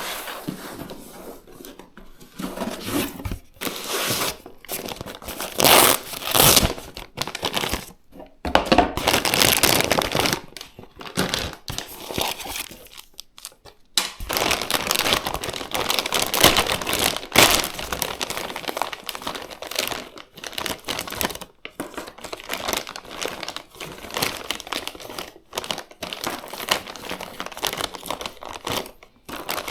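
Packaging being handled during a PC part unboxing: plastic wrap and bags crinkling and tearing in irregular bursts, with brief pauses between handlings.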